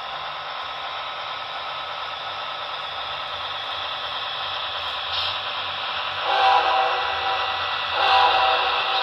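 Sound-equipped model diesel locomotive running with a steady, hissy engine sound from its small speaker, then two horn blasts, the first about six seconds in and the second about eight seconds in.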